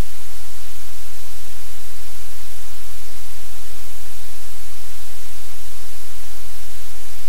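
Loud, steady static-like hiss with a low hum underneath, unchanging throughout.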